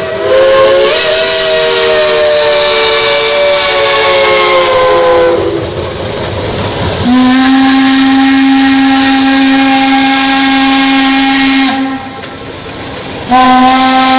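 Steam whistles of Shay geared steam locomotives blowing long blasts: a multi-note chime sliding slightly down in pitch for about five seconds, then after a short break filled with hiss, a lower-pitched whistle held for about five seconds that cuts out briefly and sounds again near the end.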